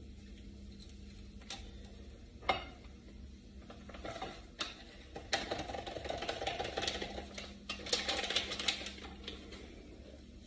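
Powdered sauce mix shaken and scraped out of its paper packet into a small cup with a spoon: light clinks of the spoon on the cup and packet rustling. A few separate clinks, then a busier run of clinks and rustling in the middle.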